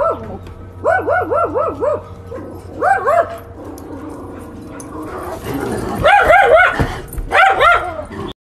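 A dog barking in quick runs of four to six high barks, each bark falling in pitch, in several bursts, with a rougher, noisier stretch about four to six seconds in.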